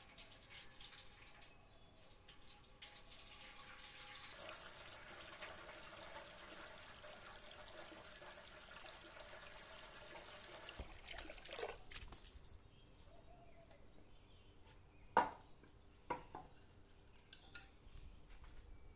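Water from a hose pouring and splashing into a stainless steel vessel, growing fuller about four seconds in and stopping about twelve seconds in. Then two sharp wooden knocks a second apart as split firewood logs are handled.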